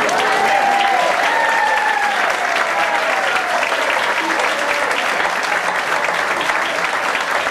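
Audience applauding steadily at the end of a song, with a few high cheering voices gliding over the clapping in the first few seconds.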